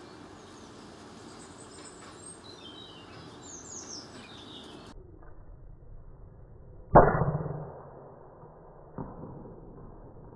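A .22 Weihrauch HW100 pre-charged pneumatic air rifle fires once about seven seconds in: a single sharp report that fades within a second, followed by a fainter knock about two seconds later. Small birds chirp in the first half.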